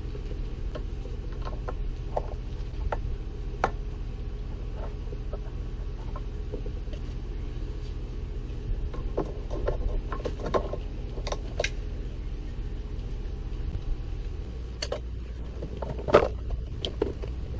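Scattered clicks and knocks of plastic hose fittings and clips as an old upper radiator hose is worked free and lifted out of the engine bay, over a steady low hum; the sharpest knock comes near the end.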